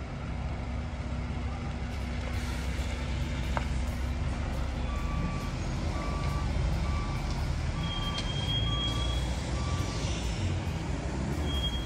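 A vehicle's reversing alarm beeping six times, about two-thirds of a second apart, over the low rumble of vehicle engines.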